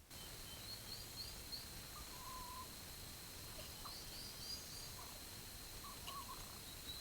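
Turkey poults peeping: clusters of short, high rising chirps, with a few lower short calls among them, over a steady high whine and background hiss.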